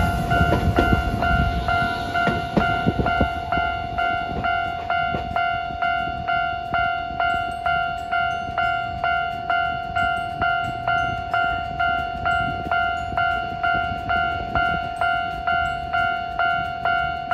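Japanese level-crossing warning alarm ringing steadily, a pitched ding repeating about twice a second. A tram rumbles past close by during the first few seconds.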